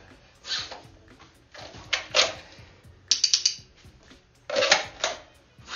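Pistol and outside-the-waistband retention holster being handled as the gun is drawn and brought up: four short bursts of clicks, rattle and rustle about a second apart, the third a quick run of sharp clicks.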